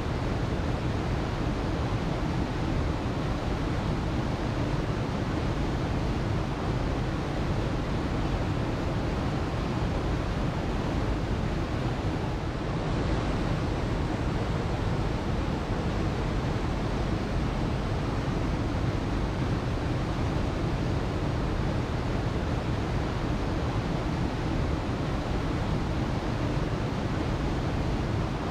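Waterfall, water falling and splashing in a steady, even rush.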